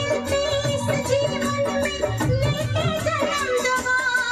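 A Hindi film song with a singer over a steady drum beat, played back through a Sansui AU-D22 integrated amplifier and its speakers with the tone controls switched off, so bass and treble are flat.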